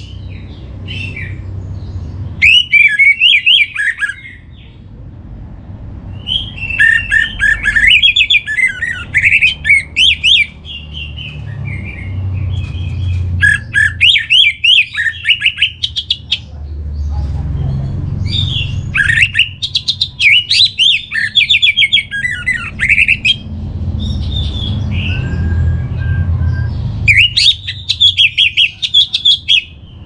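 Male orange-headed thrush singing: bursts of fast, varied, high warbling phrases a few seconds long, with pauses of a few seconds between them. A steady low rumble runs underneath.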